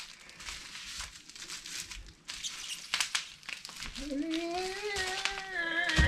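Plastic wrap crinkling and crackling as it is pulled off the handle of a timber peavey (cant hook), with a few sharp snaps. About four seconds in, a long held vocal tone starts, rising slightly and then staying level.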